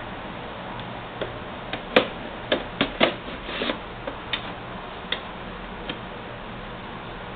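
Irregular clicks and knocks of plastic and metal as an optical DVD drive is handled and fitted into a desktop computer case, about a dozen in all, loudest about two and three seconds in and thinning out toward the end.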